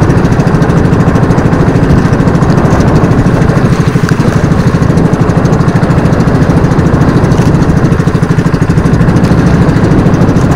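Small motorized fishing boat's engine running steadily at sea, a fast, even putter.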